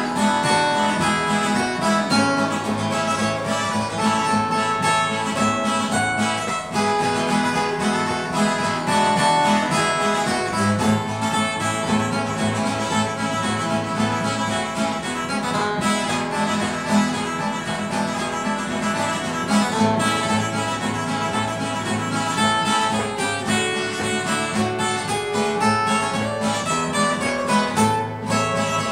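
Acoustic guitar music, strummed and plucked in a steady run of chords and notes.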